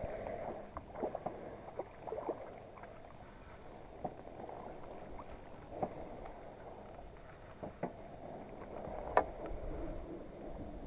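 Water lapping against the hull of a small fishing boat, with scattered light knocks and clicks and one sharper click about nine seconds in.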